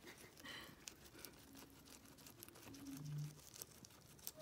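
Faint rustling and scattered crisp ticks of guinea pigs tugging at and nibbling grass, with a short low hum about three seconds in.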